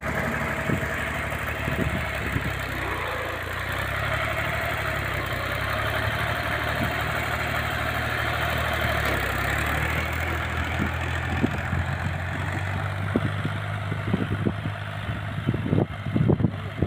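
Fiat 480 tractor's three-cylinder diesel engine running steadily while it pulls a disc plough through the soil, growing fainter as it draws away near the end. A few low thumps come in the last couple of seconds.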